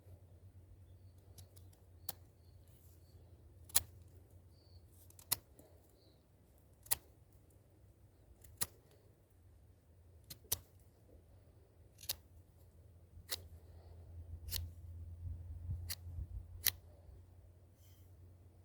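A series of sharp, short clicks or knocks, about one every second and a half, over a faint low hum.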